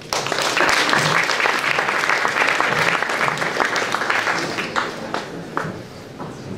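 Audience applauding. It breaks out suddenly, stays full for about four seconds, then thins to a few scattered claps near the end.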